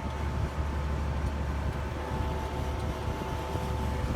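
Heavy farm harvest machinery running steadily, heard from inside its cab: a low engine drone with a thin, constant whine above it.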